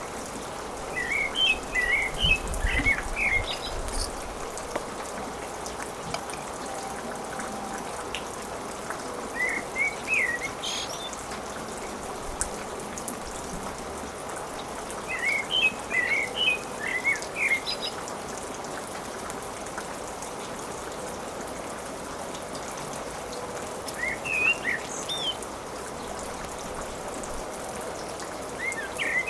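Birds chirping in short bursts of quick, rising and falling calls every several seconds, over a steady hiss.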